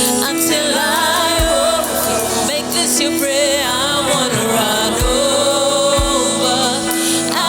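Gospel worship music: singing with wide vibrato over sustained held chords, with a few deep drum hits.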